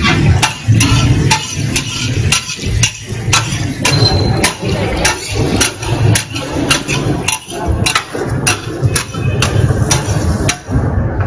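A regular series of sharp knocks or taps, about two to three a second, over a steady low rumble.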